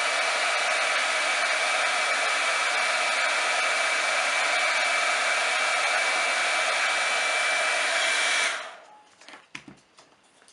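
Small hand-held hair dryer blowing hot air steadily onto a paper label to soften its glue, with a thin steady whine over the rush of air. It is switched off about eight and a half seconds in and stops sharply, followed by a few light knocks.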